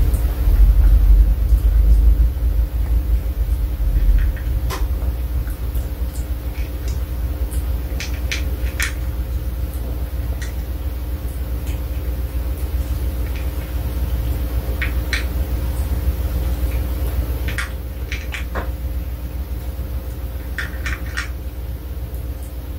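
Pomeranian eating dry food from a bowl: scattered crunches and small clicks of kibble against the bowl, some in quick clusters, over a steady low hum and rumble.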